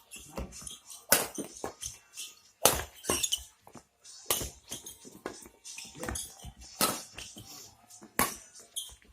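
Badminton rackets striking a shuttlecock in a rally: sharp hits roughly every one and a half seconds, with a few fainter knocks and squeaks between them.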